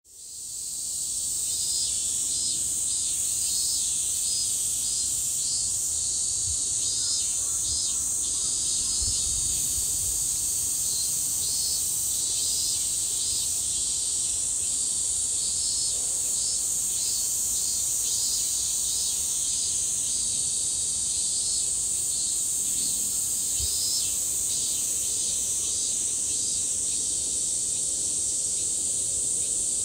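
Insects singing: a steady high-pitched drone with irregular shorter chirps beneath it, fading in over the first second or so.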